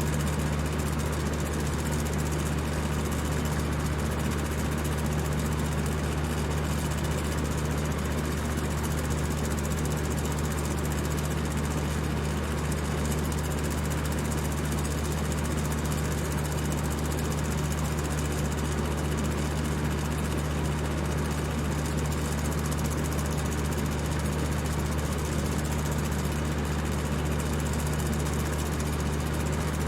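Electric fan running at high speed: a steady whir of rushing air over a constant low motor hum.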